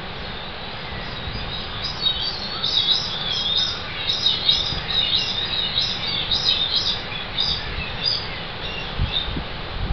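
Streaked shearwaters calling in the nest burrow: many short, high chirping notes in quick, overlapping succession, starting about two seconds in and dying away near the end, over a low rumble.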